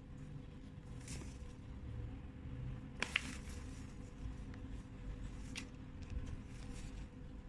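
Kitten batting and pulling at a potted plant's stiff leaves: faint rustling and light scratchy taps, with two sharp clicks close together about three seconds in, over a steady low hum.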